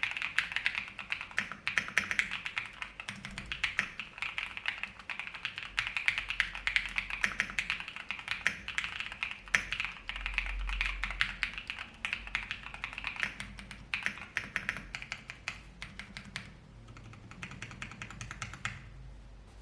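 Fast, continuous typing on a NEO65 mechanical keyboard built with a POM plate, full foam, NEO White switches and LOGA keycaps: a dense run of keystroke clicks. The keystrokes thin out near the end and stop shortly before it.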